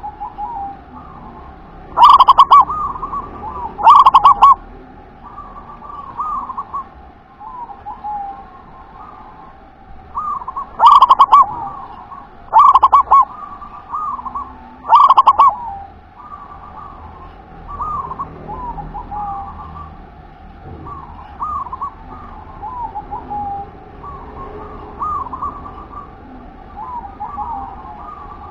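Zebra dove (perkutut) singing its cooing song: five loud phrases of quick staccato notes, two about two seconds apart near the start and three more a couple of seconds apart in the middle. Softer cooing notes repeat steadily between them.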